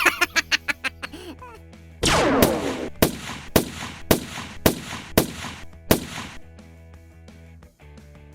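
Shots over background music: a rapid burst of about eight shots in the first second, then a loud blast about two seconds in followed by about eight evenly spaced shots, roughly two a second.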